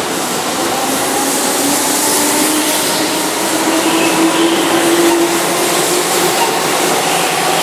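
Keihan electric train pulling out along a station platform, its traction motors whining upward in pitch as it gathers speed over a steady rushing noise.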